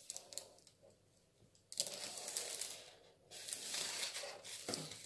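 Red felt-tip marker drawn along a wooden ruler across pattern paper: two long strokes of the tip rubbing on the paper, starting about two seconds in, with a few light clicks of the ruler and marker before them.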